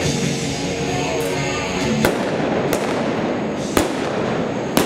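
Four sharp gunshots from black-powder blanks fired by a galloping mounted shooter, the first about two seconds in and the rest spaced roughly a second apart, each echoing through the arena.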